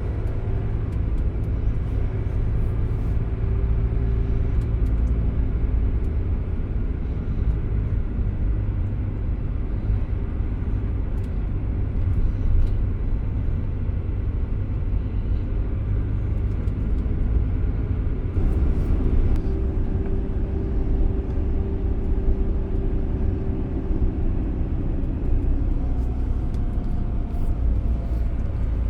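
Citroën Jumper van on the move: a steady low rumble of engine and road noise, with faint engine tones that shift slightly in pitch.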